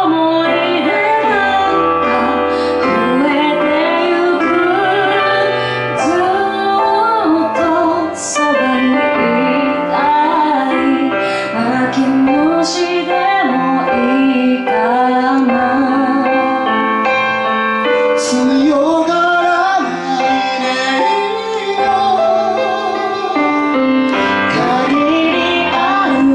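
A woman singing a pop ballad live into a microphone, her voice amplified over a piano-led backing track; a man's voice comes in at the very end.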